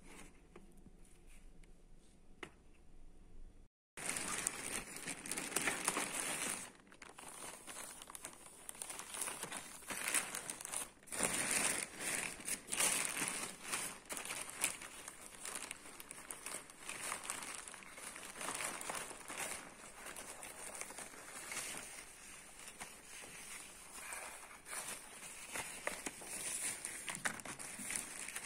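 Plastic and paper packaging being crinkled and torn open by hand: a dense, irregular crackling rustle that starts about four seconds in, after a quiet stretch with a few light taps.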